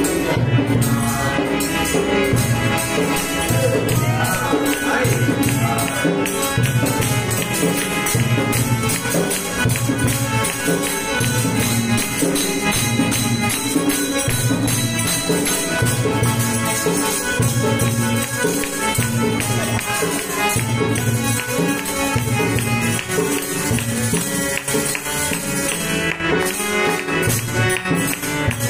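Instrumental interlude of a devotional bhajan: a harmonium plays sustained melody over a steady beat of low drum strokes, about one a second, and jingling percussion.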